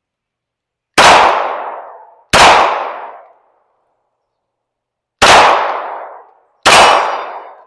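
Four shots from a Springfield Hellcat Pro 9mm pistol: two about a second and a half apart, a pause of nearly three seconds, then two more, each shot ringing away over about a second.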